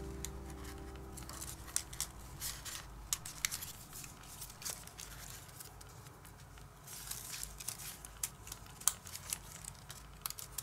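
Stiff white paper pieces rustling and ticking as they are handled and slotted together by hand: a scattering of short, light clicks and crinkles.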